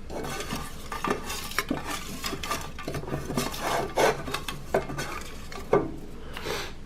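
Paper raffle tickets being stirred and rummaged by hand in a can as one is drawn, a steady rustle and scrape with many light clicks against the can and a sharper knock near the end.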